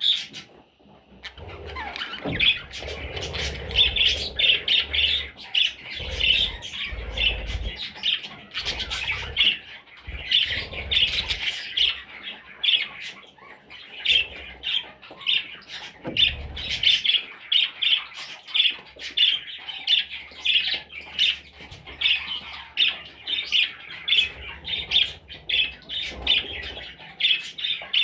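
Budgerigar chicks squawking in rapid, repeated short calls, several a second. Low bumps and rumble come and go in the first half.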